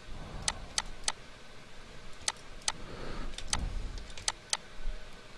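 Computer mouse and keyboard clicks: about a dozen sharp, irregularly spaced clicks over a faint low rumble.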